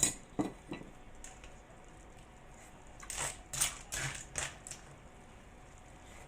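A few light clicks of a spoon against the pot, then short slurps a few seconds in as the steamed-clam broth is tasted from the spoon.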